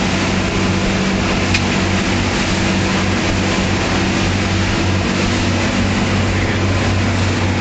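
Lifeboat's engines running steadily under way, a constant low drone heard from inside the wheelhouse, over the rush of water and spray against the hull.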